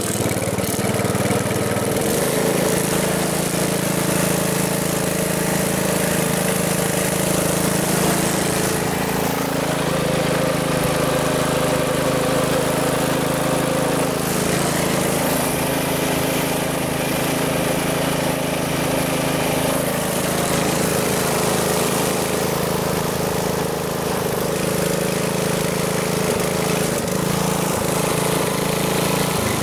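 An engine running steadily at low speed, its pitch drifting slightly now and then.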